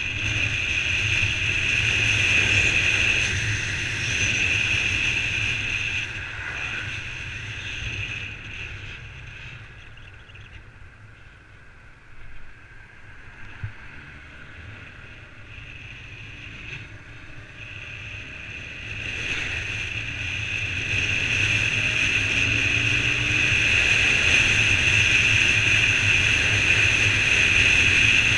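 Wind rushing over the microphone of a Honda CBR125 motorcycle on the move, with its small single-cylinder engine running beneath. The rush drops away for several seconds midway, then builds back up as the bike picks up speed again.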